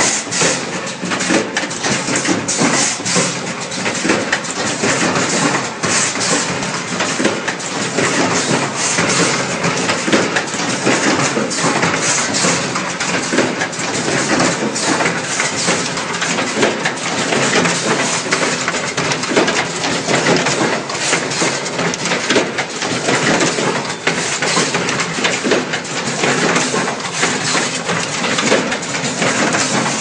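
Automatic three-pin plug insert crimping machine running: a steady, dense clatter of rapid clicks and knocks from its air-driven cylinders and crimping heads.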